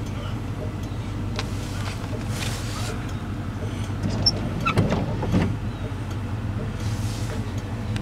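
Car engine idling, a steady low hum heard from inside the cabin, with a few short knocks and clicks about halfway through.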